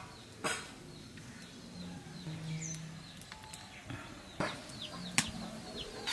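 An egg clinking against a steel wok as it is set into it, then faint bird chirps and two sharp knocks near the end.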